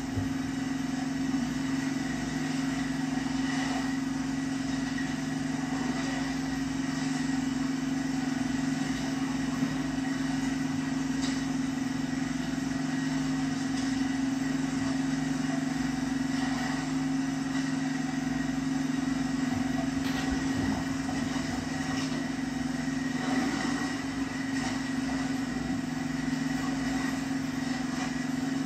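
Steady engine drone from an outrigger fishing boat, heard through a television's speakers, holding one even pitch with no change in speed.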